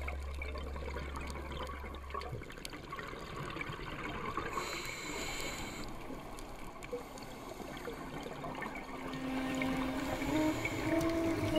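Underwater sound of a scuba diver breathing through the regulator: a steady bubbling and trickling of exhaled air, with a hiss of inhaled air about five seconds in.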